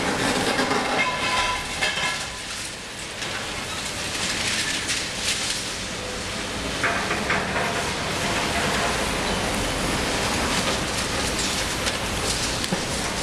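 Liebherr 954 long-front demolition excavator at work: a continuous crunching, crackling clatter of breaking concrete and falling debris over the running machine, with brief metallic squeals near the start and again about seven seconds in.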